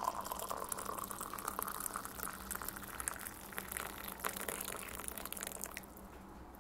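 Freshly brewed coffee being poured from a French press into a cup: a faint liquid pour with many small crackling pops, with a filling note near the start.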